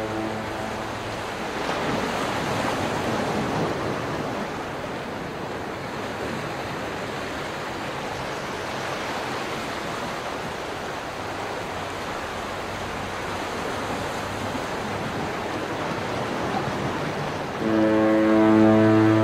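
Ocean surf washing in a steady, even hiss. A deep ship's horn blast ends just as it begins, and another blast comes in near the end.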